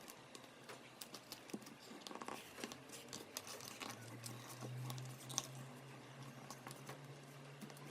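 A sheet of A4 paper being handled and folded, giving scattered faint crinkles and soft clicks over a low steady hum.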